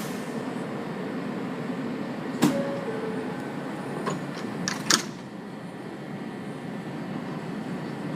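New York City subway R143 train standing at a station with a steady hum. There is a sharp knock about two and a half seconds in and two more near five seconds in, the last the loudest.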